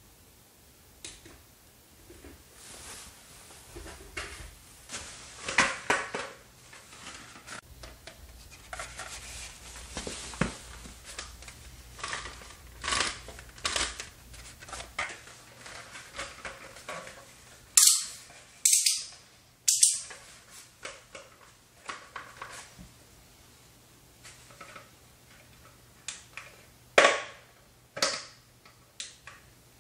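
A plastic hard hat and its clip-on headlamp being handled: an irregular run of clicks, taps and rustles from the shell, suspension and lamp. A few much louder, sharper clicks stand out about two-thirds of the way through and again near the end.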